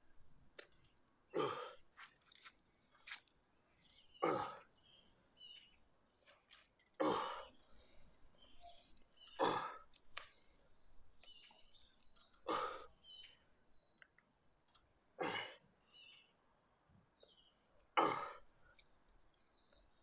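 A man's hard breaths of effort during slow single-arm dumbbell rows, one short breath every two and a half to three seconds, seven in all, one with each rep. Birds chirp faintly between them.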